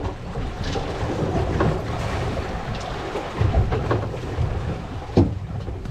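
Wind buffeting the microphone over water sloshing against a fishing boat's hull, with a few brief knocks and clicks.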